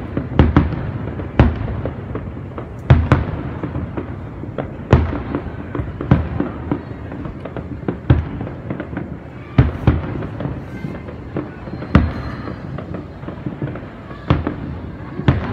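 Aerial firework shells bursting in a large display: irregular sharp bangs about every one to two seconds over a continuous crackle.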